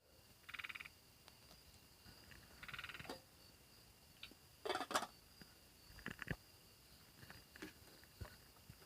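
Two short rapid rattling frog calls about two seconds apart over a steady high drone of night insects. A few sharp clicks and knocks come near the middle, the loudest about five seconds in.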